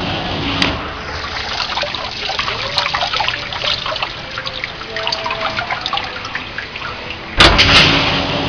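Commercial dishwasher running, water splashing and dripping inside with many small ticks. About seven seconds in, a loud rush of water starts suddenly, with a low steady hum under it.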